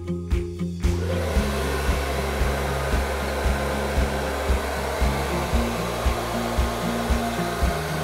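A handheld hair dryer switches on about a second in and runs steadily, blowing on wet acrylic paint. Background music with a steady beat continues underneath.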